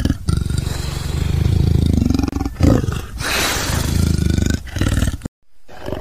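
Leopard giving deep, rasping growling calls in several strokes with short breaks between them, cut off suddenly about five seconds in.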